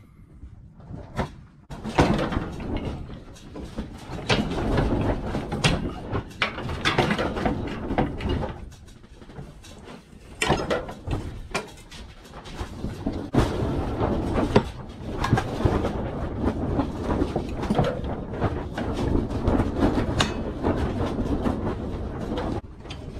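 Irregular metal clanks, knocks and scraping of steel parts as a garden-tractor tiller's hitch brackets are worked into the mount by hand.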